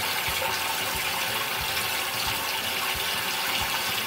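Bathtub tap running steadily, the water splashing as hair is wetted and washed under it.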